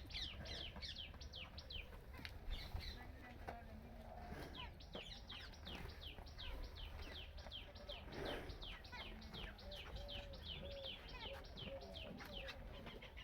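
A bird calling a long, fast series of high chirps, each sliding downward, about three a second, with a short pause about three seconds in.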